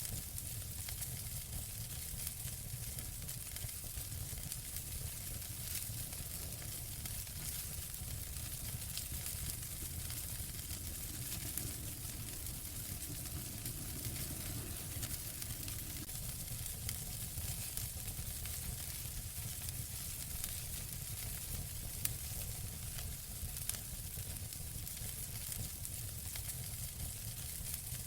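Wood fire burning in a fireplace: a steady hiss and low rumble with frequent small crackles and pops, and one sharper pop about three-quarters of the way through.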